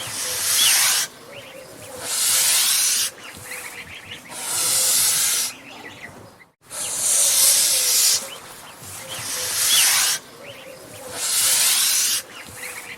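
Angry goose hissing: repeated loud hisses, each about a second long, coming roughly every two seconds. The hissing cuts out to silence for a moment about six and a half seconds in.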